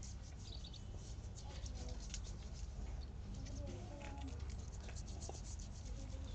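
A hand-held stone scrubbed against wet bare feet: a quick, uneven series of rough scraping strokes on the skin.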